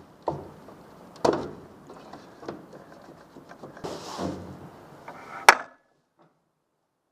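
Knocks and clicks from handling the generator's front panel and the wiring of its old plastic kill switch, with a scrape a little after four seconds in and a sharp click about five and a half seconds in. The sound then cuts out completely.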